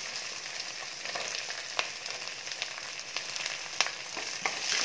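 Chopped onions sizzling in hot sesame oil in a stainless-steel kadai, stirred with a wooden spoon, with a few sharp clicks through the steady hiss.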